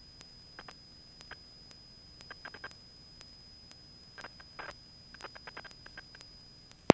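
Faint electrical hiss on a Cessna 172's headset intercom audio feed, with a steady high whine and scattered clusters of small crackling clicks; the engine itself is not heard. At the very end, loud cabin noise suddenly cuts in as the intercom opens.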